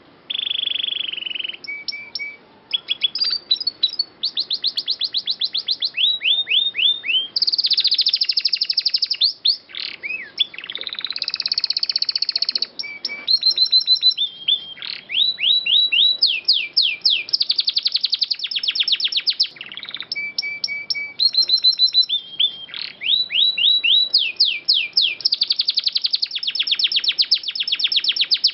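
Domestic canary singing a long, continuous song of fast trills and rapidly repeated notes, many sweeping down in pitch, with only brief pauses between phrases.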